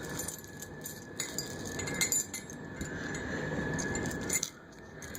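Steel dog chain and its threaded C-clamp connector clinking and rattling as the connector is twisted open by hand.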